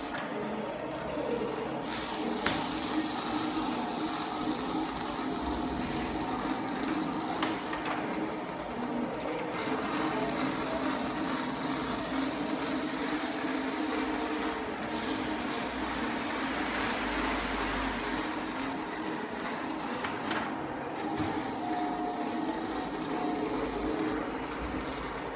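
Roland vinyl cutting plotter cutting black window tint film: its motors whir as the cutting head shuttles across the film, the whirring rising and falling in pitch as the head and feed rollers change speed and direction.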